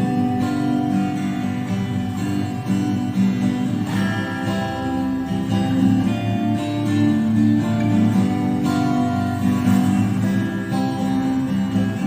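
Acoustic guitar strumming chords steadily with no voice, the chords changing about four seconds in and again near nine seconds.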